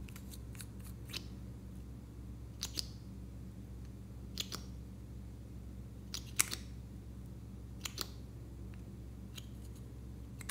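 Light, sharp clicks and taps of a small plastic squeeze tube with a lipstick-shaped cap being handled and squeezed over a dish of slime. The clicks come every second or two, sometimes in pairs, over a low steady hum.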